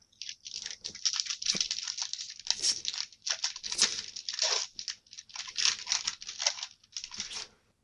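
Foil booster-pack wrapper crinkling and tearing as it is handled and ripped open, in a run of irregular rustling surges.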